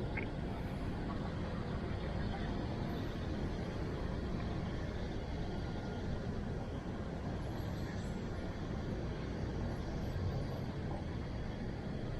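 Steady rumbling noise with no distinct events.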